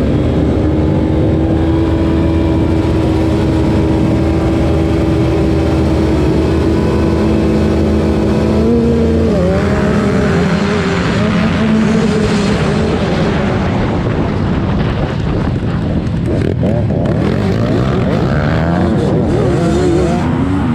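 Racing dirt-bike engines running hard. The pitch holds steady at first, changes about nine seconds in, then rises and falls as the bikes rev and ease off in the second half.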